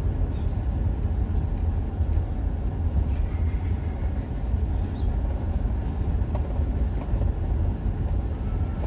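Steady low rumble of a vehicle driving slowly along a street, its engine and tyre noise heard from the vehicle itself.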